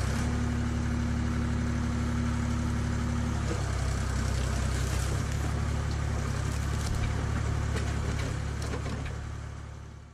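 Ford 4500 tractor-loader-backhoe engine running steadily, with a dense low engine drone. A higher steady hum above it drops out about three and a half seconds in.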